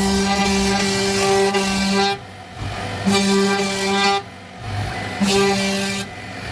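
CNC router cutting wood: a steady, pitched machine whine that breaks off about two seconds in, then returns in shorter spells of about a second, twice more.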